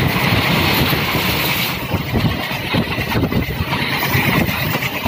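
Steel train wheels running over the rails, heard from aboard a moving passenger train: a steady, loud rumble with irregular clatter and a continuous hiss.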